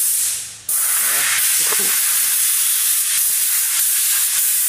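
Steady, loud hiss of rushing air or spray that starts abruptly about half a second in, with a brief faint wavering tone underneath about a second later.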